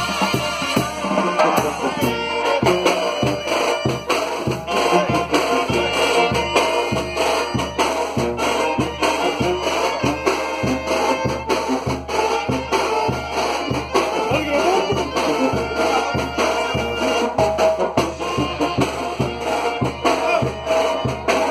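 Banda-style brass band playing: trumpets and trombones over a steady, even bass beat.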